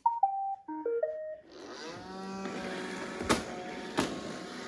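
Roomba robot vacuum switching on: a short tune of stepped beeps, then its motor and brushes start up and run with a steady hiss and hum. Two sharp clicks come partway through.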